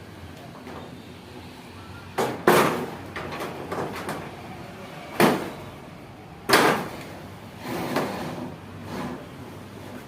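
Hand hammer striking the sheet-steel body panel of a Daihatsu Gran Max pickup bed during manual panel beating: about six unevenly spaced blows, each ringing briefly, the loudest ones about two and a half and six and a half seconds in.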